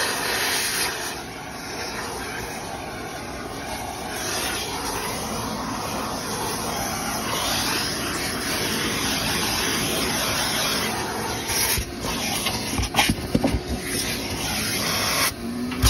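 Steady rushing air noise of dryer-vent cleaning equipment running, with a cluster of knocks and rattles about twelve to fourteen seconds in.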